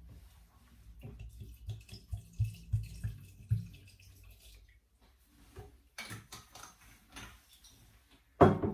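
Cold water poured from a bottle into a Thermomix mixing bowl, glugging in a run of uneven low pulses for about three seconds. Near the end, a sharp knock as the bottle is set down on the counter.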